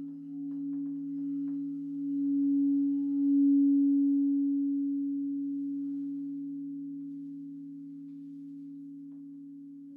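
Frosted quartz crystal singing bowls ringing in a steady, pure deep tone with a second, lower tone beneath it; the sound swells to its loudest about three and a half seconds in, then slowly fades. A few faint ticks sound in the first second and a half.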